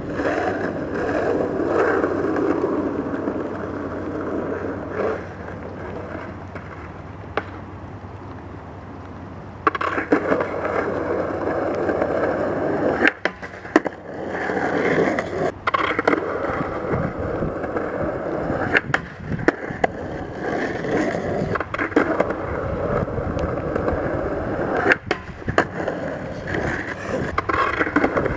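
Skateboard wheels rolling over wet skatepark ramps, with sharp clacks of the board and wheels hitting and landing. It is quieter for a few seconds around the middle, then the rolling and clacking pick up again.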